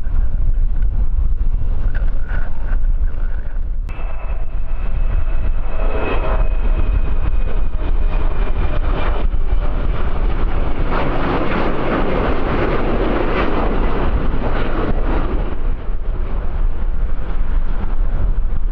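Wind buffeting the microphone with a deep rumble, while an aircraft's engines grow louder: a steady whine comes in about four seconds in, and the engine noise swells to its loudest a little past the middle before easing off.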